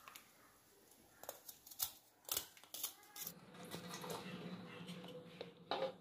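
A knife shaving the brown skin off pieces of fresh coconut: a few faint, short scraping strokes. After about three seconds a low steady hum comes in.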